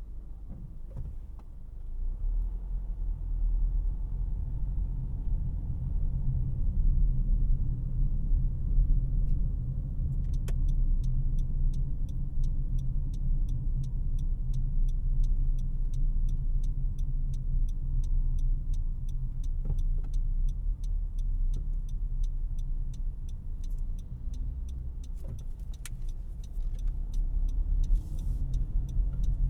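Cabin noise inside a 2018 Honda CR-V LX with its 2.4-litre four-cylinder engine: a steady low road and engine rumble that gets louder about two seconds in as the car picks up speed. From about a third of the way in, the turn-signal indicator ticks evenly, two to three ticks a second, for about fourteen seconds.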